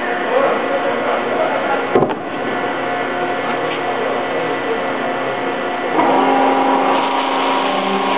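Roller machine running steadily as an aluminium composite panel with a clear anodized finish passes between its steel rollers, with a single knock about two seconds in. About six seconds in the sound grows louder and a crackling like radio static or bubble wrap sets in: the clear anodized finish cracking.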